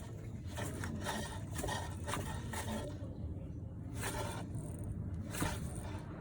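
Irregular scraping, rasping noise over a steady low engine hum from a Toyota Noah ZRR70 with the engine running: the abnormal noise that is traced to a faulty alternator.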